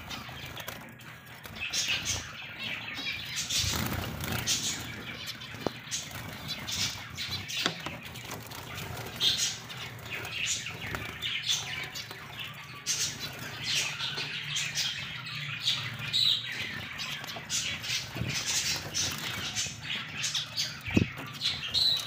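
Budgerigars chirping and chattering in an aviary: many short, high chirps following one another without a break.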